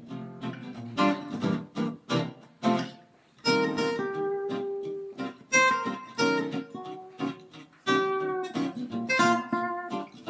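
Intro music played on guitar: strummed chords and picked notes that ring out between strokes.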